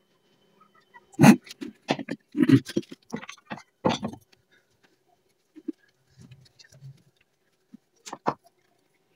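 A run of knocks and clatters as a bowl of resin with a brush in it is set down and handled on a stone worktop, thickest in the first few seconds, then a few soft taps and one more knock near the end.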